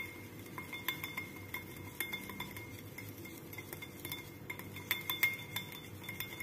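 Wire whisk beating spiced curd in a glass bowl, its wires clicking and scraping against the glass in a quick, irregular run of light clicks.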